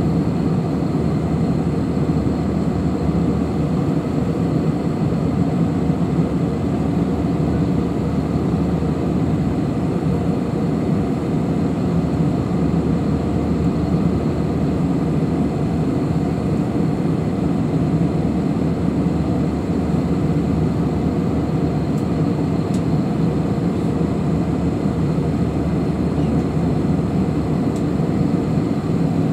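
Steady cabin noise inside a jet airliner in flight: an even, low rush of engines and airflow, with a few faint steady high tones.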